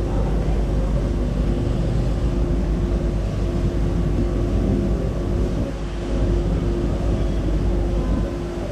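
Steady mechanical drone of running machinery: a low rumble under a constant mid-pitched hum, unchanging throughout.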